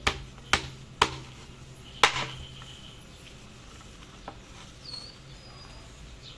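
Knife chopping roast pork (lechon) on a cutting board: four sharp chops in the first two seconds, then a single faint click.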